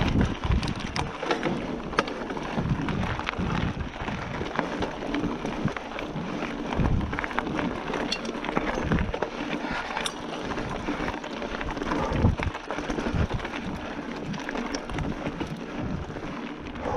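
Giant Fathom 1 29er hardtail mountain bike riding down a rough trail: a steady rumble of tyres over the ground with wind rushing on the microphone, and frequent clicks, rattles and knocks as the bike goes over bumps.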